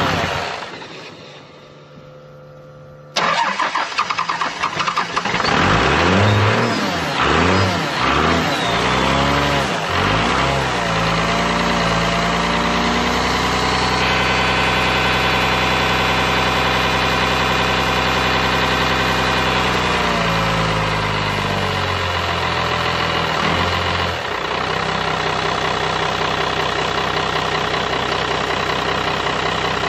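A 12-valve Cummins 5.9 litre inline-six diesel winds down to a stop, then about three seconds in it cranks and fires. Its revs swing up and down for several seconds before it settles into a steady run, dropping to a lower idle after about twenty seconds.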